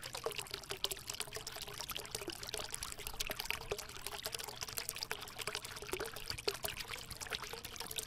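Steady trickling, bubbling water, with many small crackles over an even rush.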